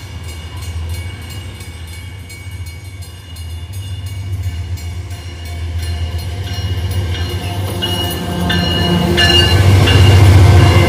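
Two GE AC44i diesel-electric locomotives at the head of an empty ore train, their engines running with a deep steady drone that grows much louder as they approach and pass close by. High steady tones join in and grow stronger over the last few seconds.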